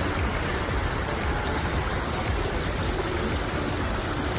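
Water from a man-made waterfall rushing and splashing steadily, a continuous hiss with a deep rumble underneath.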